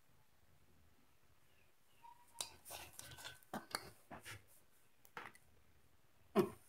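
A child chewing a chicken wing close to the microphone: a run of short, soft mouth smacks and clicks beginning about two seconds in, with a louder burst near the end.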